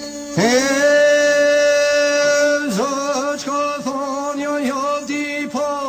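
Background music: a man's singing voice slides up into one long held note about half a second in, then moves on to wavering, ornamented notes over a steady held drone.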